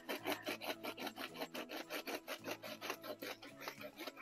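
A bread knife sawing back and forth through the crust of a hot, freshly baked loaf of bread, in quick, even rasping strokes, about four or five a second.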